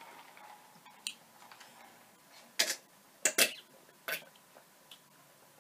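Close-miked drinking from a paper cup: several short, separate sips and swallows, with small mouth clicks between them.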